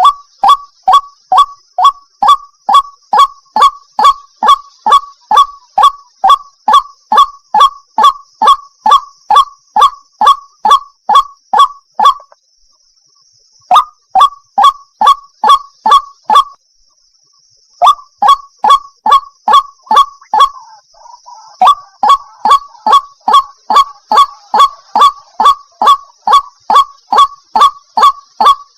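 White-breasted waterhen (ruak-ruak) calling: a fast run of loud, short falling notes, about two and a half a second, broken off twice for a second or so near the middle, over a faint steady high hiss. The call of a female calling the male, used as a hunting lure.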